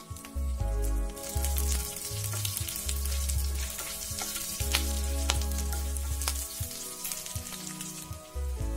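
Green chillies, curry leaves and whole spices sizzling in hot ghee in a non-stick frying pan. The sizzle swells about a second in as the chillies hit the fat, with scattered crackles while they are stirred with a wooden spatula.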